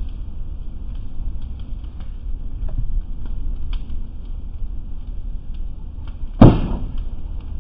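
Boat fire crackling with scattered pops over a steady low rumble, then one loud bang about six seconds in as something in the burning boat bursts.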